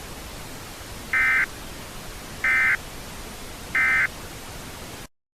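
Emergency Alert System end-of-message (EOM) data bursts: three short, identical electronic bursts about a third of a second each and a little over a second apart, signalling the end of the alert. A steady hiss lies under them and stops near the end.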